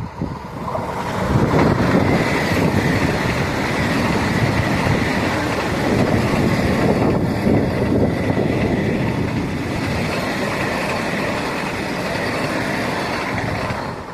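Indian Railways train passing close by at speed: a loud, steady rumble of wheels on the track with a faint high whine, building about a second in and falling away near the end.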